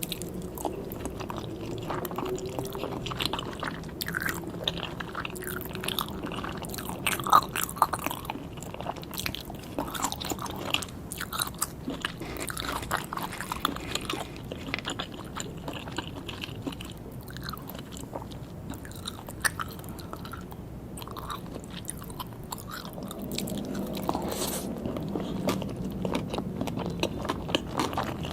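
Close-up eating sounds of a person chewing and biting sushi: a dense run of small wet clicks and smacks, with one sharper click about seven seconds in.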